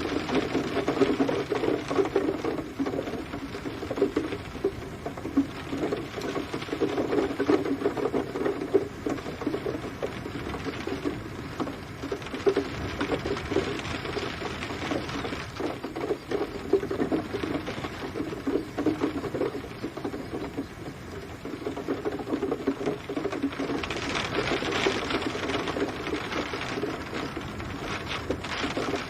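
Steady rain pattering: a dense run of small drop taps on a surface, with the higher hiss swelling for a few seconds near the end.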